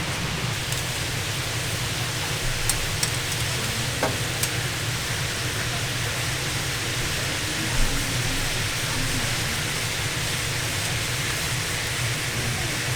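Steady sizzling hiss of tteokgalbi (minced short-rib patties) cooking on a hot grill, with a few faint clicks and taps.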